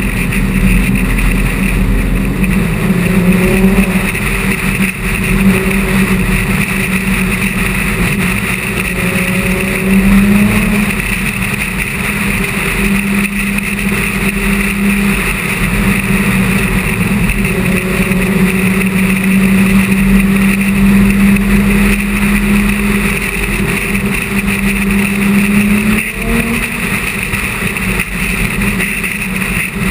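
A car engine running steadily at cruising speed with road and wind noise, its pitch shifting slightly as the car eases off and picks up speed.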